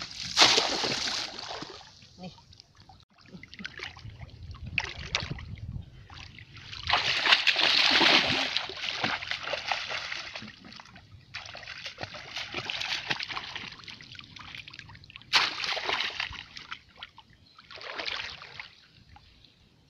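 Shallow muddy water splashing and sloshing in repeated bursts a few seconds apart, from wading and from working a bamboo plunge-basket fish trap down into the water by hand.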